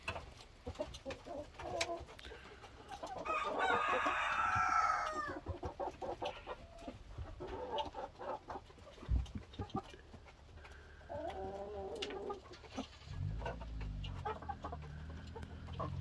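A flock of roosters clucking, with one rooster crowing loudly for about two seconds, starting about three seconds in. A shorter call comes a little before twelve seconds, and a low steady hum sets in near the end.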